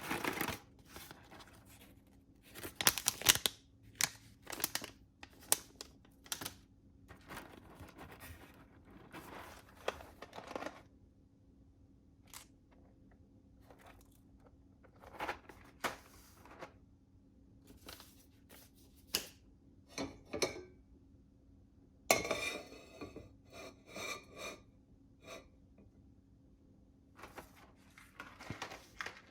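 Food packaging being torn open and handled: a string of short, irregular tearing and crinkling sounds with brief pauses between them.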